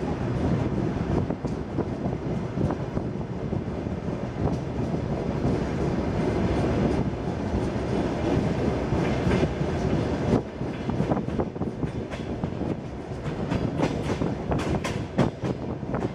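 Ride noise of a DR1A diesel railcar train on the move, heard from on board: a steady rumble of wheels and running gear. From about ten seconds in, sharp clicks of the wheels over rail joints and points come more and more often.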